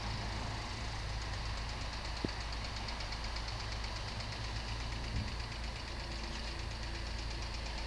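A steady low motor hum, with a fast, even pulsing buzz high up that grows stronger after about a second; a sharp click about two seconds in and a soft thump about five seconds in.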